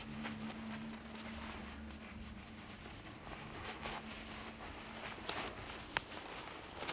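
Soft ambient music fading out over the first couple of seconds, leaving a faint outdoor hiss with a few sharp clicks near the end.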